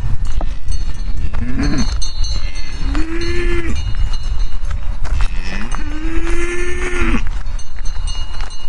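A cow mooing three times: a rising call, a short one, then a longer held one, over a steady low rumble.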